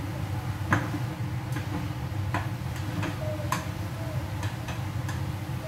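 Scattered light clicks and taps at irregular intervals, about eight in all, over a steady low hum.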